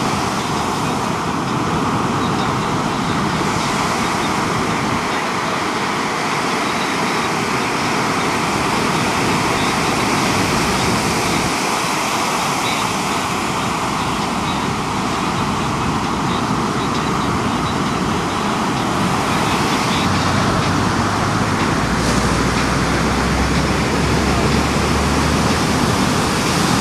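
Big ocean surf breaking and washing as a loud, steady, unbroken noise; a deeper low rumble joins in about three quarters of the way through.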